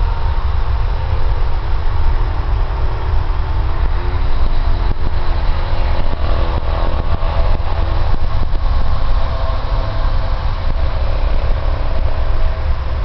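Distant buzz of model airplane engines, their pitch rising and falling as the planes fly, over a loud, steady low rumble.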